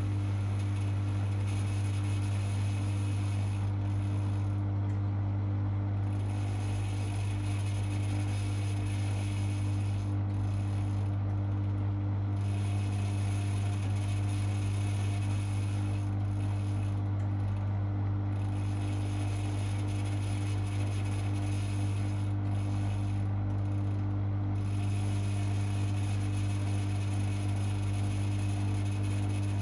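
Privileg 5020 front-loading washing machine in its wash cycle: the drum motor turns the drum for several seconds, stops for about two seconds, then starts again, a rhythm typical of the drum reversing, over a steady hum. The owner says the motor audibly shows its years of use in a laundry.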